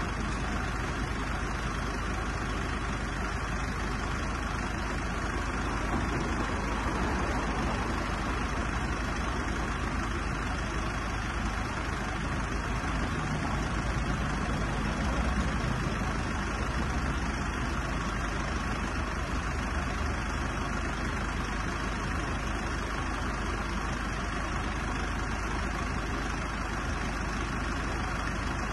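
Mercedes-Benz Sprinter 314 CDI diesel van idling steadily.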